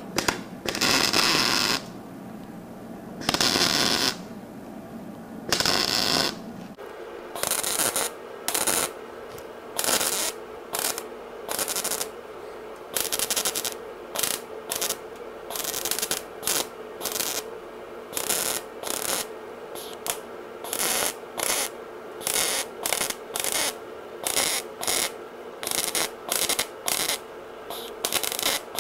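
MIG welder tack- and stitch-welding filler patches into a steel car dash. There are three arc bursts of about a second each, then a run of short bursts, one or two a second, the stitch welds laid in short pulses to keep heat down and avoid warping. A steady hum runs underneath.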